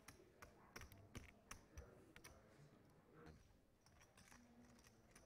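Near silence with faint, irregular clicks, a few a second, thinning out after about three seconds.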